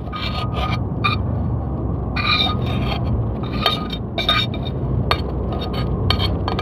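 A metal bowl scraping and clinking against a large steel karahi as a thick paste is worked out of it, in about a dozen irregular strokes, each with a short ringing metal note. A steady low rumble runs underneath.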